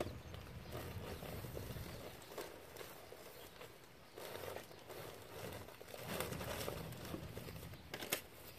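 Plastic bags of mulch rustling and scraping as they are dragged across a pickup truck bed, in uneven spells, with a sharp double knock near the end.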